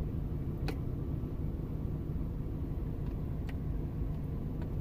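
Steady low rumble inside a vehicle cab, with three faint clicks, the first about a second in and two near the end.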